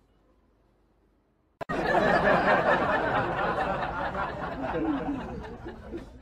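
Faint room tone, then after a sudden start about one and a half seconds in, loud mixed voices chattering and laughing.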